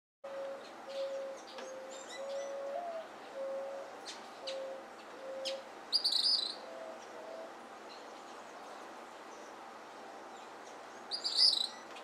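Gray kingbirds giving two loud, high, chattering calls, one about halfway through and one near the end. Under them, until about two-thirds of the way in, runs a string of short, low, even notes repeated about every second, with a few thin sharp chips.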